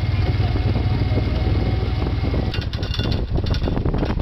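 Moto Guzzi motorcycle engine running with a steady, deep pulse, with a run of sharp clicks and knocks over the last second and a half.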